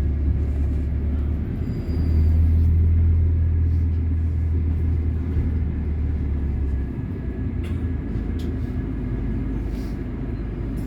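Low, steady rumble of a London bus heard from inside the passenger cabin. It swells about two seconds in and eases off about seven seconds in.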